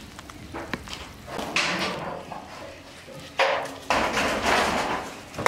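A metal ladle clinking and scraping as it stirs a pot of boiling soup, with a few rushes of louder noise.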